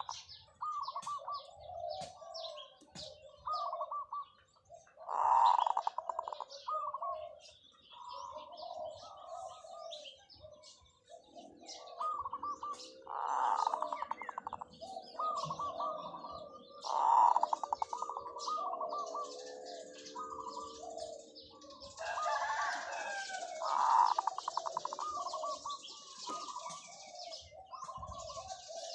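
Zebra dove (Java dove) cooing over and over: several loud rolling coos, a few seconds apart, with softer trilled coos between, in long drawn-out phrases. Small birds chirp thinly and high above it.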